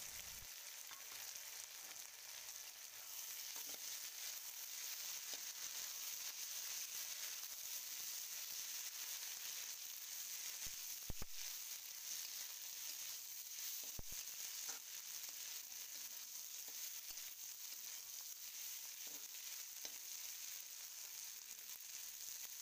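Bitter gourd and potato pieces sizzling steadily in hot oil in a metal wok while a spatula stirs them, with a few sharp knocks of the spatula against the pan. The spice paste is being cooked down with the vegetables.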